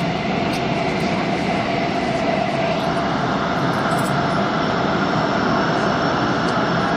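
Busan Metro Line 3 train running steadily through a tunnel: a continuous loud rumble of the train in motion with a steady mid-pitched tone running through it.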